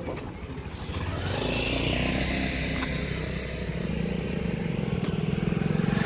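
A motor vehicle's engine running steadily. It comes in about a second and a half in and grows slowly louder toward the end.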